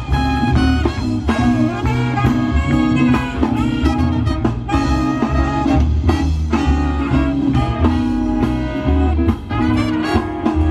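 Live swing band playing, with saxophones, guitar, upright bass and drums.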